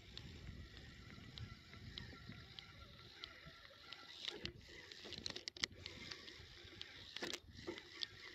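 Faint sounds of a spinning reel being cranked to retrieve a lure from a kayak, with small irregular ticks and clicks over a low background hiss. A few louder knocks stand out past the middle, the loudest a quick cluster about five and a half seconds in, and another near the end.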